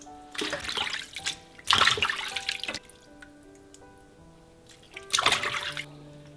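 Running tap water splashing over raw chicken pieces being rinsed in a steel kitchen sink, in three bursts: one just after the start, a louder one about two seconds in, and a short one near the end. Background music plays throughout.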